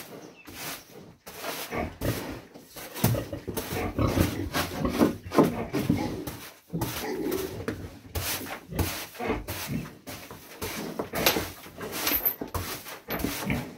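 Broom sweeping a pig pen floor in repeated, irregular scraping strokes, with a heavily pregnant sow grunting.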